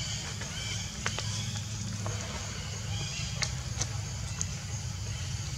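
Outdoor background: a steady low rumble with faint distant high calls and a few light clicks.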